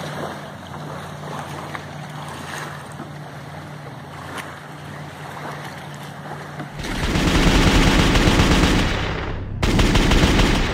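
Open-water ambience: wind on the microphone, lapping water and a steady low hum. About seven seconds in, a loud, harsh sound effect from the closing logo sting cuts in, breaks off for a moment near the end, then returns.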